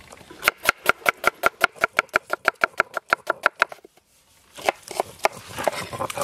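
Kitchen knife chopping a red onion on a wooden board: quick, even strokes, about six a second, that stop a little under four seconds in. After a brief pause come irregular knocks.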